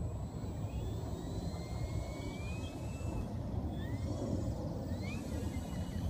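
Electric motor and propeller of a 1200mm Corsair radio-controlled model plane whining faintly in flight, the pitch sliding up and down and rising near the end, over a steady low rumble.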